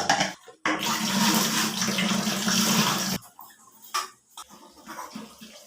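Tap water running hard for about two and a half seconds, starting and stopping abruptly, with a few light clicks and knocks around it.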